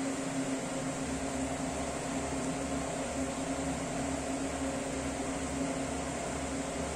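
Steady mechanical hum with a constant low drone and an even hiss, unchanging throughout, like a running fan or other room appliance.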